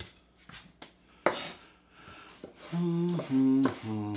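Metal kitchen utensils clinking and knocking, with one sharp clack a little over a second in. Near the end a man hums a few steady low notes of a tune.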